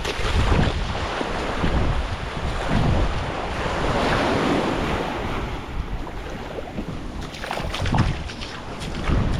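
Sea waves washing onto a sandy beach, with wind buffeting the microphone in low rumbling gusts.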